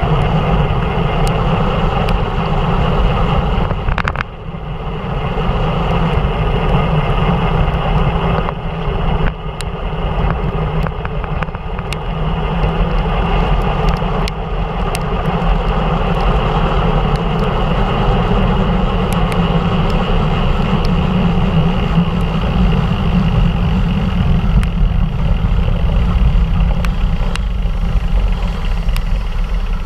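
Rushing wind on a GoPro Hero3's microphone and tyre noise on a wet road during a fast bicycle descent in the rain. Steady throughout, with brief dips about four and nine seconds in and scattered faint ticks.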